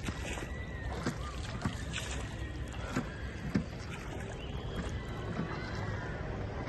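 Steady low rumble of a boat ride on the water, with a few sharp knocks.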